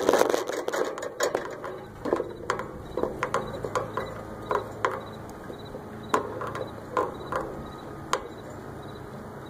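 Irregular clicks and knocks from a tilt-over antenna mast's mechanism as the mast moves, picked up by a phone strapped to the mast. They come several a second for the first four seconds or so, then more sparsely.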